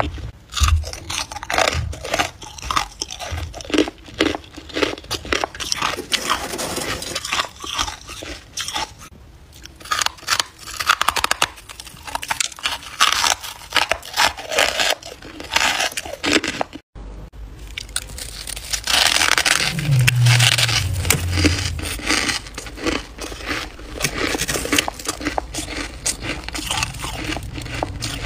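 Close-up crunching and chewing of freezer frost: many crisp, irregular crunches as the packed ice crystals are bitten and ground between the teeth.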